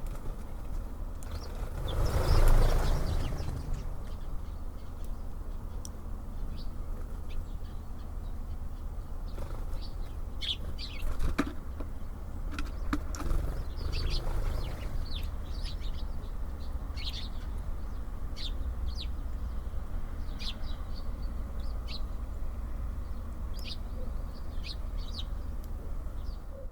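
Small birds at a feeder giving short high chirps, scattered and frequent through the second half, over a steady low background rumble. About two seconds in there is a brief, loud rush that fits a flutter of wings close by.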